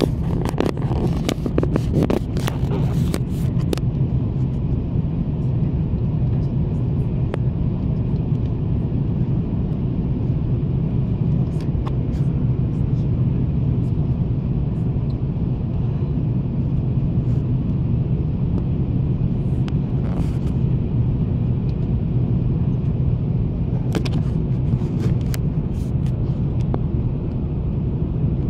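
Steady low drone of an airliner cabin in flight: jet engines and rushing airflow heard from a window seat over the wing. A cluster of sharp clicks and knocks comes in the first few seconds, with a few more later.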